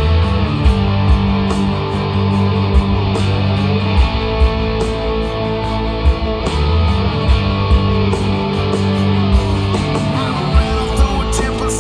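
Live rock band playing an instrumental passage through a concert sound system: electric guitars over a drum kit, with steady drum hits punching through.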